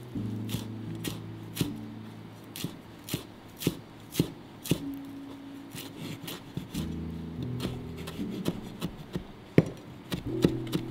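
A knife chopping fresh coriander leaves on a cutting board: sharp knocks about two a second, coming faster near the end.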